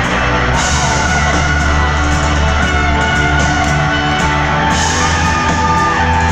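A rock band playing live through an arena sound system, with guitar over a steady drum beat, loud and reverberant in the large hall.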